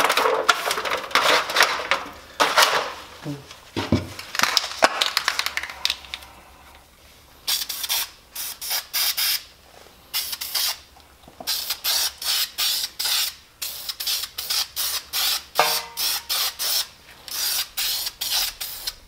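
Rubbing and handling of metal brackets in a thin foil pan, then an aerosol can of brake caliper paint sprayed in many short hissing bursts, two or three a second with brief pauses.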